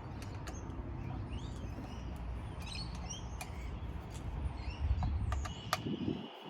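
Birds chirping over a low steady rumble, with a few scattered sharp clicks.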